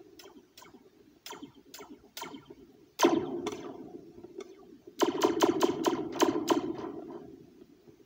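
A metal slinky taped to a red plastic cup is struck with a metal spoon, and the cup amplifies each tap into a ringing, laser-gun-like zap. A few light taps come first, then one hard strike about three seconds in, then a quick run of taps just past the halfway point.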